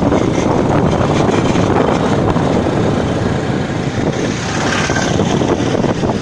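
Wind buffeting the phone's microphone: a loud, steady rushing that flutters irregularly.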